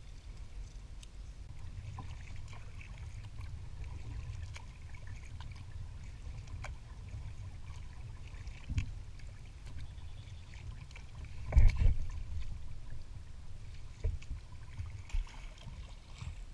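Kayak being paddled: the paddle blades dip and splash with a light trickle of water, over a low steady rumble. There are scattered small knocks and one sharper knock about two-thirds of the way through.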